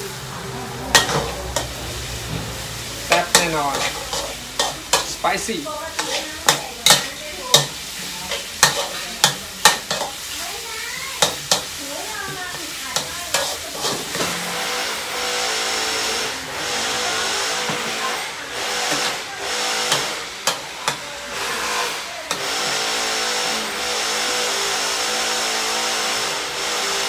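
Metal spatula scraping and clanking against a steel wok while chicken and chillies stir-fry and sizzle, with sharp knocks every half second or so through the first half. In the second half the scraping thins out into a steadier sizzle, with a steady hum underneath.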